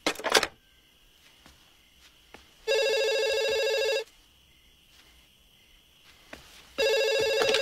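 A brief sharp knock at the very start, then a telephone ringing twice. Each ring is a steady, trilling electronic tone about a second long, with roughly three seconds between them: the caller ringing back.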